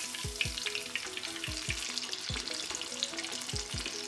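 Panko-coated pork cutlet deep-frying in oil at about 175 °C: a dense, steady crackling sizzle of bubbling oil around the meat. Light background music with a steady beat sits underneath.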